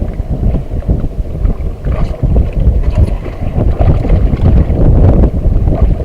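Wind buffeting the microphone on an open boat: a loud, uneven rumble that rises and falls in gusts.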